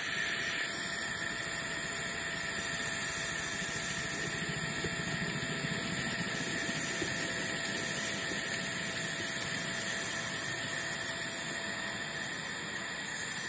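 5-inch gauge live steam locomotive standing with steam hissing steadily.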